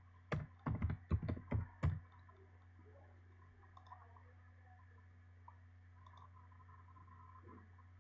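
Computer keyboard typing: a quick run of about eight keystrokes in the first two seconds, then only a steady low hum with a few faint clicks.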